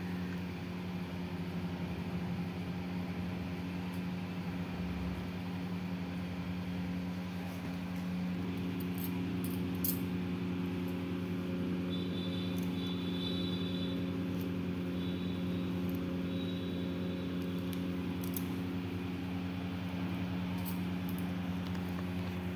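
A steady low mechanical hum that gets slightly louder about eight seconds in, with a few faint scattered ticks.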